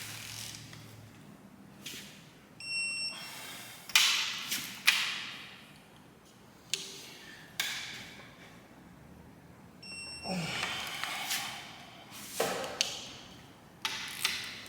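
Metal tools and engine parts clanking and clinking on a workbench during engine assembly: a string of sharp knocks with short metallic ringing, two of them leaving a brief clear ring.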